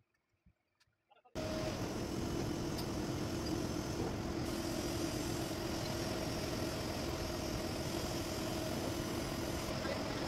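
After a second or so of near silence, a metal lathe starts sounding suddenly and then runs steadily as its tool faces a spinning cast iron flange: an even machine noise with a low steady hum.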